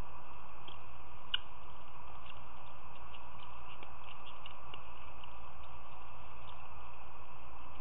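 Steady outdoor background hiss with scattered faint, short high ticks, one a little louder about a second in.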